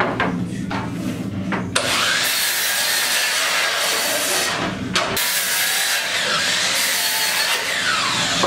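Power miter saw starting up and crosscutting a wooden board, likely oak: a loud motor whine with the noise of the blade in the wood. The sawing breaks off briefly around the middle, starts again, and the blade winds down near the end.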